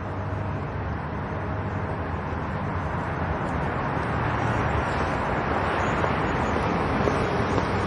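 Street traffic: cars passing with a steady rush of tyres and low engine hum, growing louder through the second half as a vehicle approaches.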